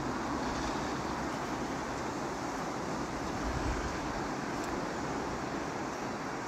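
Steady hiss of rain falling, with a low, fluctuating rumble of wind on the microphone.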